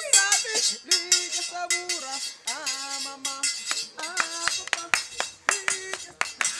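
A voice with some notes held and wavering, over many short, sharp clicks and clinks.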